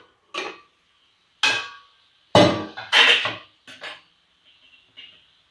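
Steel lid and a metal spatula clanking against a steel kadhai as the lid is taken off the pan. About half a dozen sharp metallic knocks with short ringing, the loudest two near the middle, then a few faint taps.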